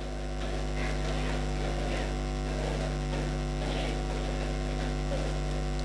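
Steady electrical mains hum, a low buzz of several even tones, over a faint murmur of many voices praying aloud.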